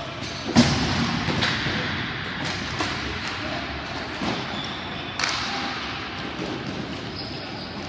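Ball hockey play: a loud thud about half a second in, then scattered sharp knocks of sticks and ball, every second or so, over the hum of the rink.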